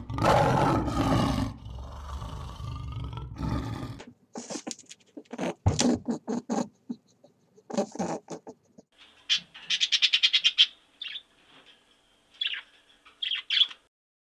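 A big cat growling and roaring, loud and rough for about four seconds. It is followed by a scatter of short clicks and chirps, with a fast rattling trill about ten seconds in.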